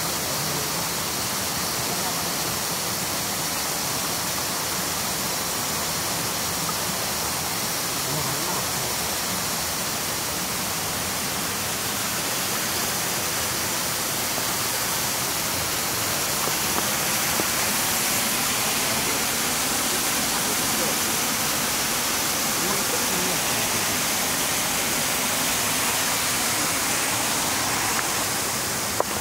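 Steady rushing of a mountain stream, an even hiss that gets slightly louder about halfway through.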